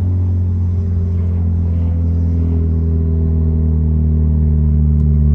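Straight-piped Dodge Dart exhaust running steadily, a deep, even note that holds almost the same pitch throughout.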